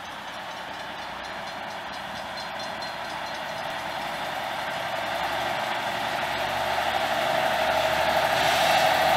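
Diesel switcher locomotive pulling a passenger car on the approach, its engine and wheels growing steadily louder as it draws near.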